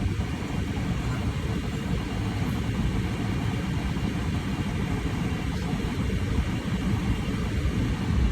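Steady low rumbling noise inside a Tesla Model X's cabin, with no distinct events.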